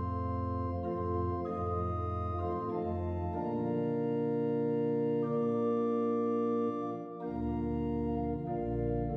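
Background music of slow, held organ chords over a bass line, the chords changing every second or two.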